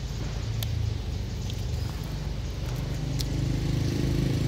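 An engine running steadily nearby, a low hum that grows louder over the last second and a half, with a few faint clicks.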